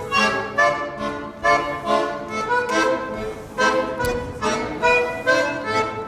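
Piano accordion playing a folk dance tune, with a few thuds of feet on the floor.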